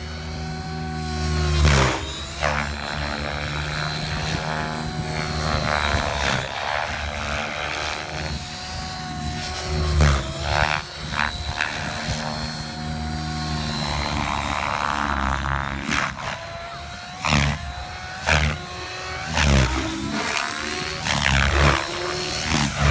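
JR Forza 700 electric RC helicopter flying aerobatics: the rotor and motor whine rise and fall in pitch as it manoeuvres, with several sudden loud swells of rotor noise.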